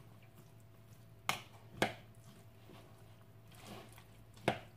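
A metal utensil stirring a mayonnaise-dressed salad in a ceramic bowl: soft squishing, with three sharp clinks of metal on the bowl, two close together about a second in and one near the end.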